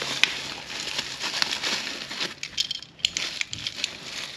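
Scratchy scraping with scattered sharp clicks as a mounting screw is worked out of a garage door opener's wall push-button switch.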